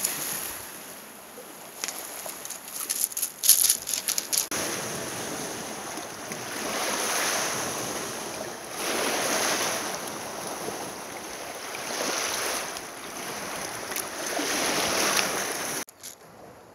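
Small waves washing against shoreline rocks, swelling and falling back about every two to three seconds. A burst of crackling clicks comes in the first few seconds, and the sound cuts off suddenly near the end.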